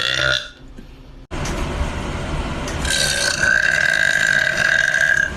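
A woman burping: a short burp ends right at the start, then about a second in a long, drawn-out belch begins and runs for about four seconds before cutting off abruptly.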